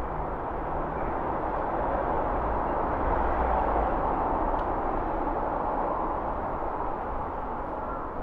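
Road traffic: a steady rushing of passing vehicles that swells about halfway through and eases off again. There are no bell strikes.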